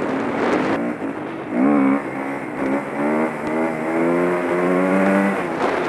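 Husqvarna dirt bike engine revving hard under way, its pitch climbing and dropping several times as the rider works through the gears, with wind noise over the helmet camera.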